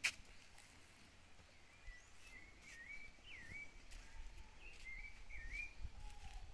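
A bird singing a phrase of whistled notes that dip and rise in pitch, from about two seconds in until near the end, over faint outdoor background noise with a few soft clicks.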